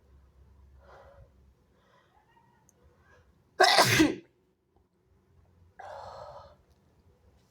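A person's wet sneeze: faint breathy inhales build up, then one loud, sudden sneeze about halfway through, followed by a quieter breathy sound about two seconds later.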